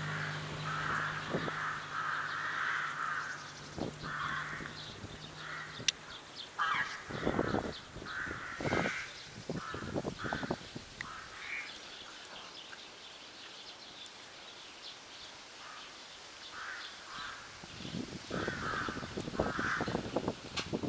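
A crow-family bird caws over and over in runs of short harsh calls. A low steady engine hum runs for the first few seconds and then stops, and puppies scuffle in the snow now and then.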